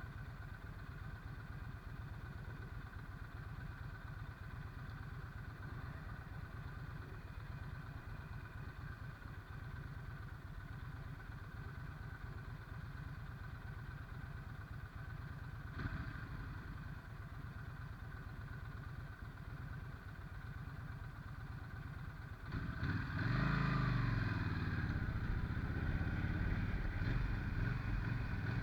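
Yamaha Stryker's V-twin engine running at a steady low idle. About 22 seconds in it gets louder and revs up, with engine pitch rising and falling as the bike accelerates.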